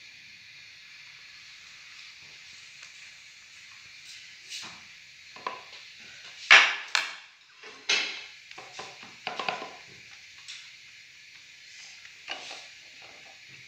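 Kitchen handling sounds: hands laying and pressing slices of smoked turkey onto vegetables in glass baking dishes, with a few short clatters and rustles, the loudest about six and a half and eight seconds in, over a steady faint hiss.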